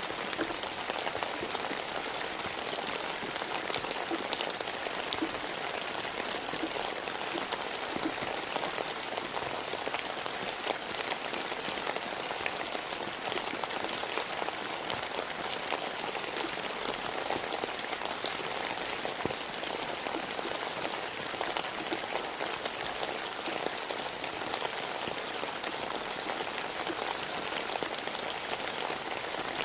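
Steady rain falling, a dense even hiss of drops with many small individual patters on a surface.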